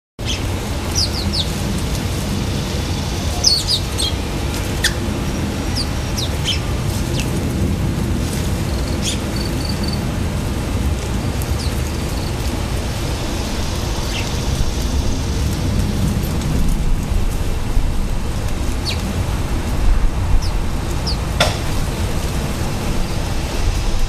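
Small songbirds chirping, with short high calls scattered here and there, over a steady low rumble.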